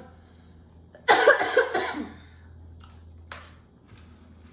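A person coughs harshly once, about a second in, caught by the spicy seafood-boil seasoning. A faint click follows later.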